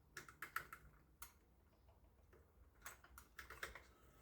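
Faint, light clicks and taps of a small hook tool working at the tachograph's face to pry it open: a quick cluster near the start, a single click about a second in, and another cluster around three seconds in.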